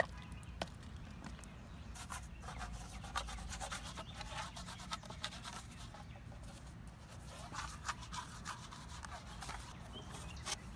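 Bristle paintbrush rubbing and scrubbing through thick oil paint on a wooden palette, faint scratchy brushing with small clicks, over a steady low hum.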